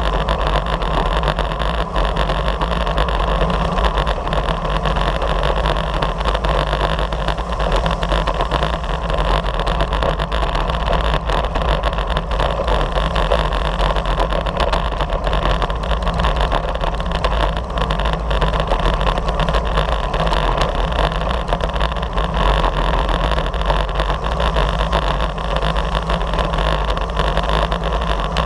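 Steady rush of wind over the microphone mixed with tyre hum on a rough chip-seal road, from a bicycle riding at race speed in a pack of cyclists.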